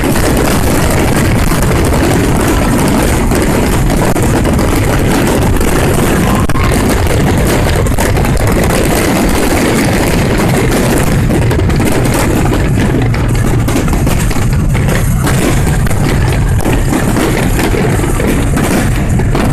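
Fireworks going off in a dense, continuous barrage: many bangs and crackles run together into one steady, loud rumble.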